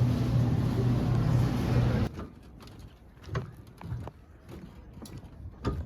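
Steady hum of a running engine that cuts off abruptly about two seconds in, leaving a quiet stretch with a few light taps.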